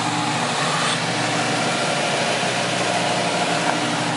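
Mini 9 dry deburring and finishing machine running, its sanding head with an 80-grit abrasive belt and its conveyor going together: a steady hum with an even hiss.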